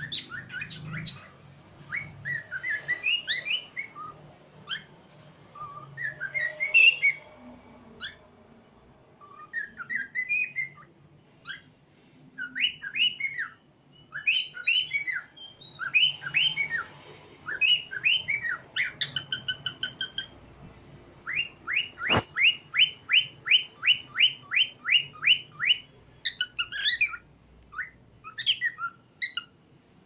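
Cockatiel singing: a stream of short whistled, warbling phrases and chirps, with a fast run of evenly repeated chirps, about three or four a second, in the second half. A single sharp click about two-thirds of the way through.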